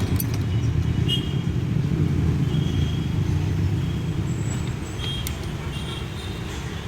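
Steady low rumble of motor traffic, with a few light clicks.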